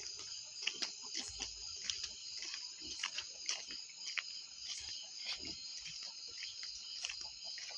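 Crickets chirring in a steady, high-pitched night chorus, with scattered soft footsteps and small knocks on the ground.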